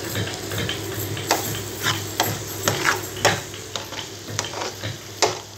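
A metal spoon stirring a pan of frying potatoes and scrambled egg, scraping and knocking against the metal pan about twice a second over a steady sizzle.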